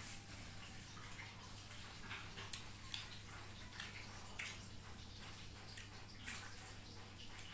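Close-up wet chewing of spicy instant noodles and fried egg: soft, irregular mouth smacks over a faint steady hum.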